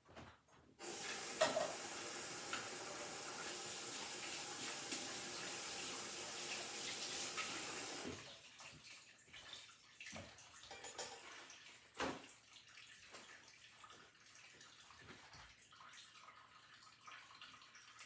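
Kitchen sink faucet running as hands are washed under it, shut off about eight seconds in. Then faint small knocks and handling sounds, with one sharp click a few seconds later.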